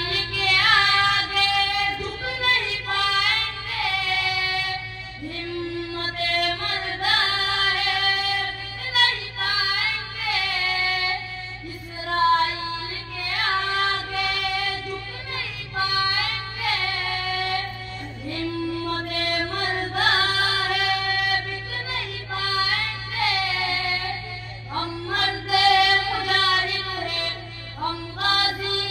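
A boy's high voice singing a nasheed over loudspeakers, drawing out long melodic notes that bend and glide, phrase after phrase with short breaks. A steady low hum lies under the voice.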